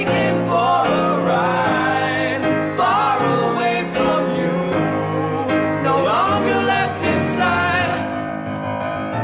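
Indie pop-rock demo recording: sung vocals with no words caught, over sustained band backing. About eight seconds in, the sound thins to a quieter instrumental passage.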